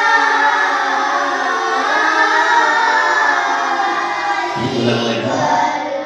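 A class of children's voices reciting together in unison, many voices moving in pitch as one group. A man's lower voice comes in about two-thirds of the way through as the group falls away.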